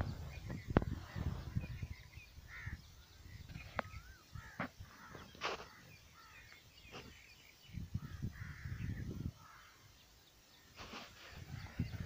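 Various birds calling in short, scattered calls and chips, with intermittent low rumbling on the microphone.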